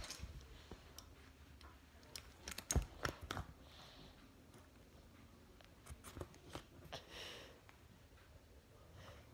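Faint, scattered light clicks and taps in small clusters, with a couple of soft rustles.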